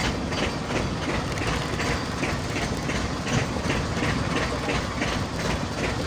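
Outrigger fishing boat's engine running steadily, with a regular mechanical clacking about three times a second.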